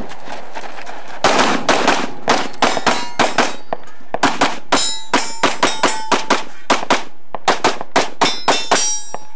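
Rapid pistol fire, about three shots a second, starting about a second in and stopping near the end. Steel targets ring with a clang as they are hit.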